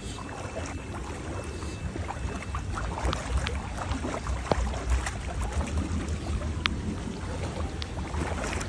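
Floodwater sloshing over a steady low rumble, with scattered small splashes and clicks.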